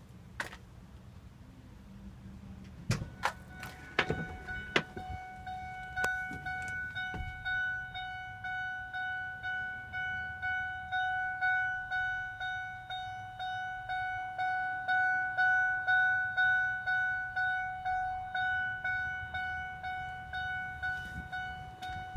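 Dashboard warning chime in a 2007 Ford F-750 cab, dinging over and over at about one and a half dings a second while the cab door stands open, stopping shortly before the end. A few knocks come before the chime starts, about three to five seconds in.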